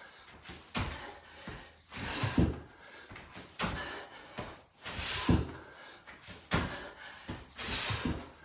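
Burpees on an exercise mat: repeated thuds of hands and feet landing as the body drops to a plank and jumps back up, at an even pace of about one rep every second and a half.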